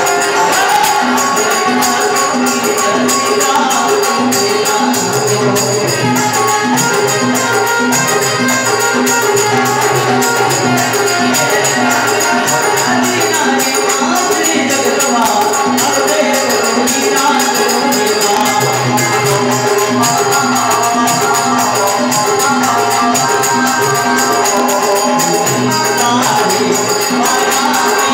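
Live Rajasthani devotional bhajan: a man singing over harmonium, keyboard and dholak, with jingling hand percussion keeping a fast, steady beat.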